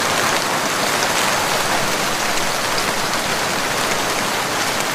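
Heavy rain falling, a steady even hiss.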